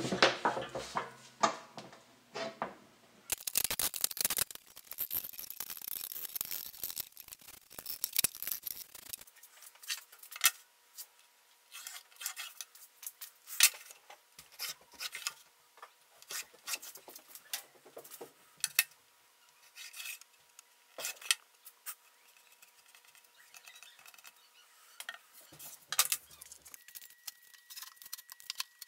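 Irregular sharp clicks, knocks and clinks of metal bar clamps and hand tools being handled against pine boards on a workbench, with some rubbing and scraping in between.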